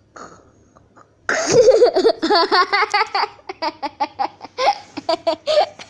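Loud, high-pitched laughter breaks out about a second in and goes on in quick repeated peals.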